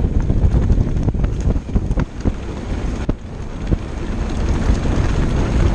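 Wind buffeting the microphone over the steady rumble of an Orbea Laufey hardtail mountain bike's tyres rolling over a rocky dirt trail. The bike rattles with a few sharp knocks as it hits rocks.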